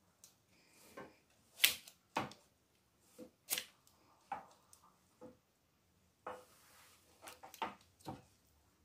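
Kitchen tongs clicking shut and tapping against a metal roasting pan while a rolled meat roast is turned in its juices: a string of separate clicks and taps, the sharpest about a second and a half in.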